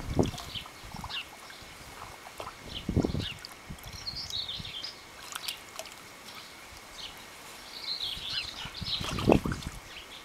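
Dogs splashing and lapping water in a shallow inflatable paddling pool: a few scattered splashes, the loudest about three seconds in and again near the end.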